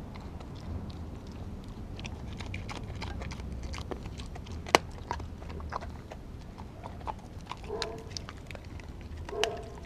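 Australian Kelpie licking and chewing raw food from a glass dish at close range: a run of wet licking and smacking clicks, with one sharp click about halfway through and a few short low-pitched noises near the end.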